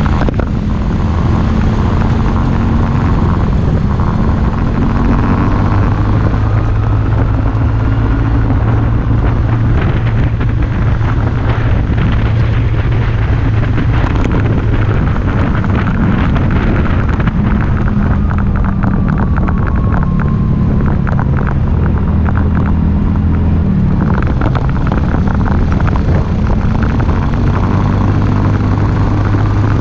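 Motor scooter's small engine running under way, its pitch stepping up and down with speed, with a steady rattle of short knocks from a loosely mounted camera shaking on the scooter.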